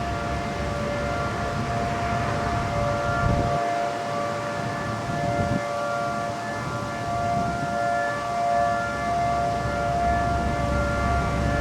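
Federal Signal Model 5 outdoor warning siren sounding a steady tone during a test: two pitches held together without rising or falling, swelling and fading in loudness.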